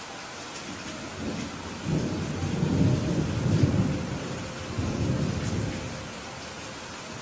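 Thunder rumbling over steady rainfall. A deep rolling rumble builds about a second in, swells twice, and fades back to the rain's hiss near the end.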